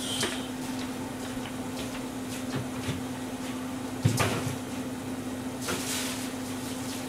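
Kitchen sounds: a steady low hum throughout, a single sharp knock about four seconds in that is the loudest sound, and a short hiss about two seconds later.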